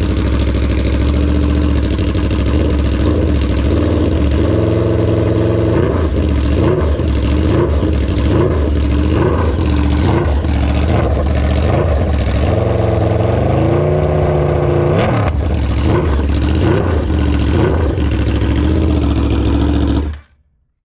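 Aprilia RSV4 1100 Factory's V4 engine running loudly, idling and then blipped through a series of revs that rise and fall, with one longer climb in revs past the middle. The sound cuts off abruptly near the end.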